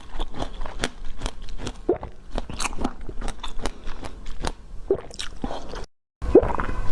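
Close-miked eating: crisp crunching and biting with many sharp cracks, like a hard candy shell breaking between the teeth. The sound cuts to silence for a moment about six seconds in, then chewing resumes, wetter and with a low rumble.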